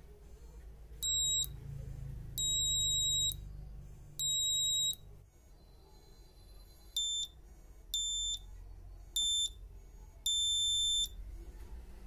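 Small round electronic buzzer giving a steady high-pitched beep each time its push button is pressed: seven beeps of uneven length, some quick taps and some held for most of a second.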